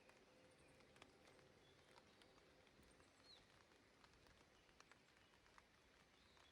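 Near silence: faint outdoor quiet with a few scattered soft ticks and one short, faint bird chirp about three seconds in.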